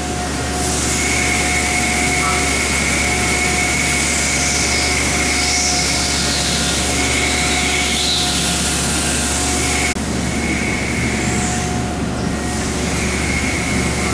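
Steady running noise of machine-shop machinery: a constant high whine and a lower steady tone over a continuous wash of noise and hum, with a short click about ten seconds in.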